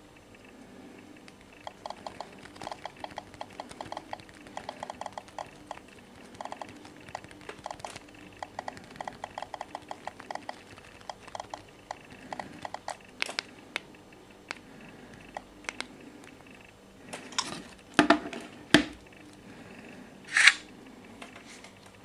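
Rapid runs of light clicking and tapping as fingers work smartphone touchscreens, a dozen or more small ticks a second in bursts. Near the end come a few louder knocks and a short clatter as the phones are handled on the table.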